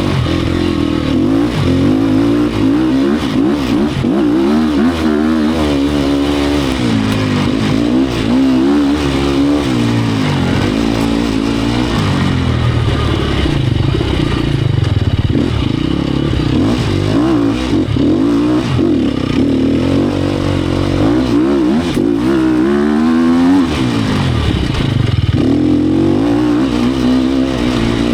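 A 2018 Sherco 250 SEF Factory enduro motorcycle's single-cylinder four-stroke engine is being ridden hard. Its pitch rises and falls over and over as the throttle opens and closes and the gears change.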